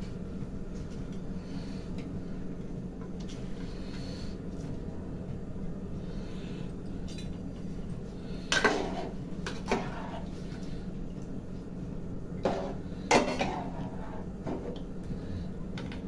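Steel ladle and steel serving tray clinking against a metal cooking pot as pakoras are added to yogurt curry and stirred: a few sharp, ringing metal clinks in the second half over a steady low hum.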